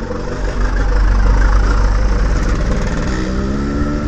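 Yamaha RX-King's two-stroke single-cylinder engine running through a stock exhaust whose long baffle has been replaced with an iron pipe, over a heavy low rumble. Its pitch rises from about three seconds in as the bike accelerates.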